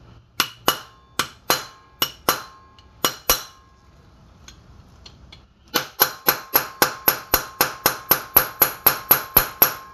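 Small steel hammer tapping the old bearing race set on top of a new race, driving the inner bearing race into a 1998 Toyota Tacoma's front wheel hub; each strike is a ringing metal clink. There is an uneven group of about nine taps, a pause of about two seconds, then a steady run of about four taps a second.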